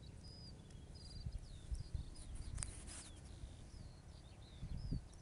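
Small birds calling: a string of short, high whistled chirps scattered throughout, over a low rumble with a few dull thumps of handling noise.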